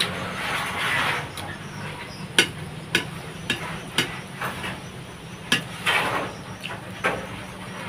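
Eating by hand from a ceramic plate: fingers mixing rice and jengkol, with several sharp, irregularly spaced clicks and taps against the plate and soft rustling of the food.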